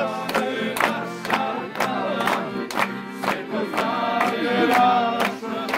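A group of people singing together, with hand claps keeping a steady beat of about two a second.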